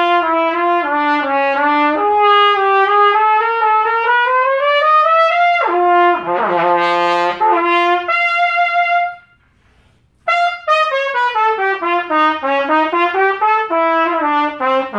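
Harrelson VPS Summit One trumpet played in a test, with no insert fitted in its mouthpiece receiver: running phrases that rise and fall, a low note about six seconds in, then a high held note. It stops for about a second near the middle and starts again with more runs.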